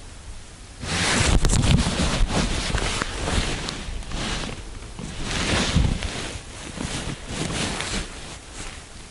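Loud rustling and wind noise on the microphone, starting about a second in and coming in uneven surges with crackly strokes.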